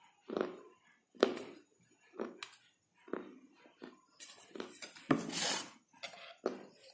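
A person chewing dry edible clay and slate pieces with short crunches about once a second. Around four to five and a half seconds in there is a longer, louder crunching and rattling, which matches the pieces being handled on the steel plate.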